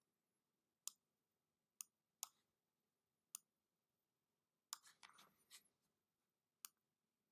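Faint, sharp computer mouse clicks, five spaced out a second or so apart, with a short run of soft scratchy sounds about five seconds in.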